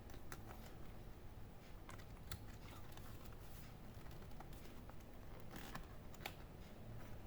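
Faint, scattered small clicks and light taps of small parts and tools being handled inside an opened laptop, over a low steady hum.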